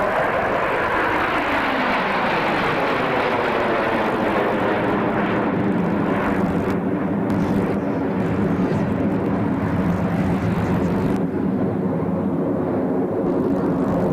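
A formation of BAE Hawk jets flying over, with steady jet-engine noise throughout. The pitch falls over the first couple of seconds, then holds.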